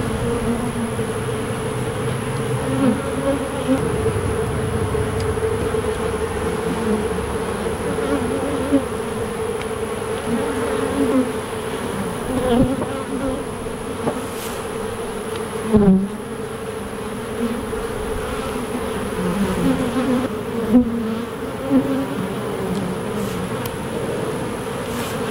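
Honey bees buzzing in a steady, wavering drone over an opened hive as frames are lifted out, with single bees flying close by. A couple of light knocks sound about two-thirds of the way in.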